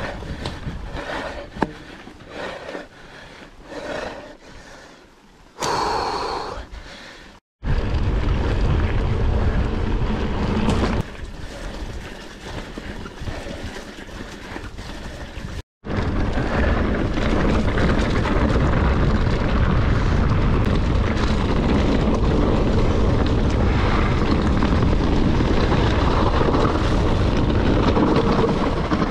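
Mountain bike rattling and clicking over a rocky trail, with a brief loud burst about six seconds in. After that comes a steady, loud rush of wind buffeting the handlebar camera's microphone, mixed with the rumble of the tyres on the dirt track.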